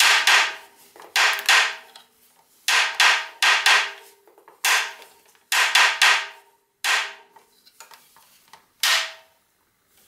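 Steel bottom bracket press being wound tight: its metal T-handles clank against the press with each turn, about a dozen sharp, ringing metallic knocks at irregular intervals, as the one-piece bottom bracket is pressed home into the frame's shell.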